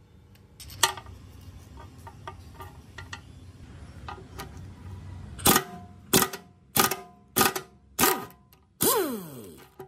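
A cordless power driver with a socket on it, undoing rusty nuts on a vintage engine block's cover plate. There is a sharp click about a second in. From about halfway, the tool is triggered in quick short bursts about every half second, then given a longer run near the end that winds down in pitch as the motor stops.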